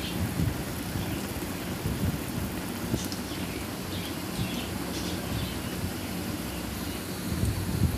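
Stuffed flour pastries deep-frying in hot oil in a steel karahi: a steady sizzle and bubbling, with a few light clicks as tongs turn them about halfway through.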